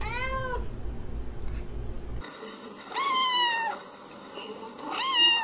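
A cat meowing three times: a short meow at the start, then two longer, higher-pitched meows about three and five seconds in, the last one the loudest.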